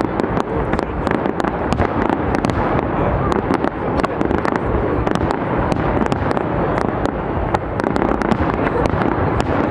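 Fireworks display going off without letup: a dense rumble of bursts with many sharp cracks and crackles, several a second.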